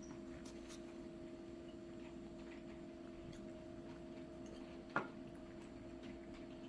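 Faint room tone with a steady low electrical hum, and a single soft tap about five seconds in.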